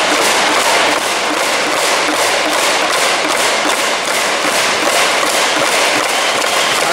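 Ice hockey arena crowd making steady noise, with clapping or noisemakers beating out a quick, even rhythm.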